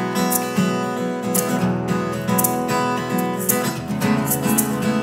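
Takamine steel-string acoustic guitar strummed in a steady rhythm, with a sharp accented stroke about once a second.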